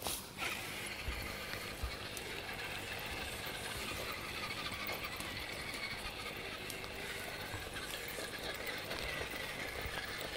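RC crawler truck's electric motor and drivetrain running with a steady whine as it crawls along a dirt trail.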